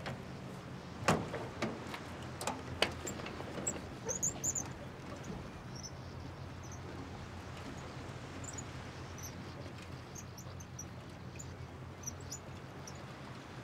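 A metal wheelbarrow knocking and rattling a few times as it is wheeled over grass in the first three seconds, then faint high bird chirps, scattered and short, over a steady low hum.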